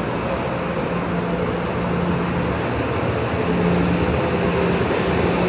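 Subway train running, heard from inside the car: a steady rumble with a low hum that comes and goes, growing a little louder past the middle.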